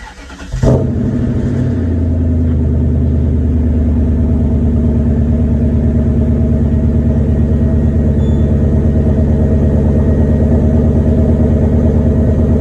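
BMW E39 M5's S62 V8 engine starting: it catches with a brief flare less than a second in, then settles into a steady idle with an even pulse.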